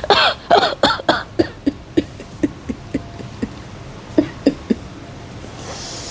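A person coughing in a string of short coughs, loudest in the first second, then quicker, fainter coughs about three a second that die away.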